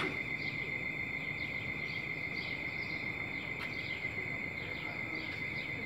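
Steady, high-pitched insect trilling with short, rapidly repeated chirps above it, over a low background rumble.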